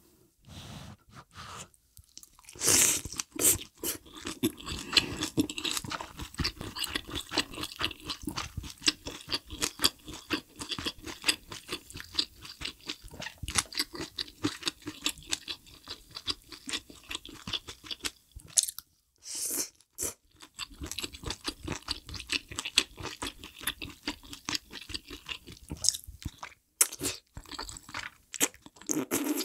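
A person chewing mouthfuls of spicy hot pot ingredients such as tofu skin, greens and cilantro, close to the microphone: wet crunching and chewing that goes on steadily with a few short pauses.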